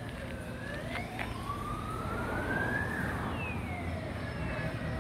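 Emergency vehicle siren wailing, its pitch rising slowly to a peak about three seconds in and then falling, over a low, steady rumble of street noise.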